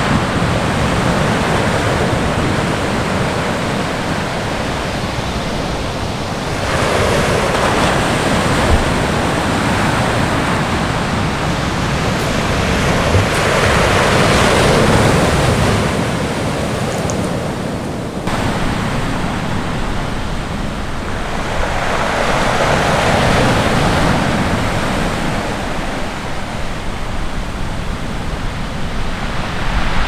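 Pacific Ocean surf breaking and washing up the shore: a constant rushing wash that swells each time a wave comes in, about every seven to nine seconds.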